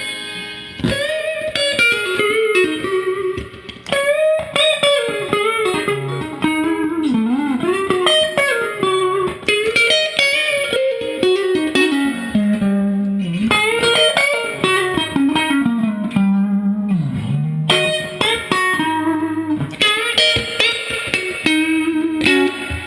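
Clean electric guitar played through a Fender Twin amp, a Stratocaster with single-coil pickups. The playing is a run of single-note lead lines and chords, with bent notes rising and falling in pitch.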